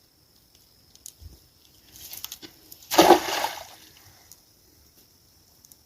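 A splash in river water about three seconds in, preceded by a few faint clicks and sloshes.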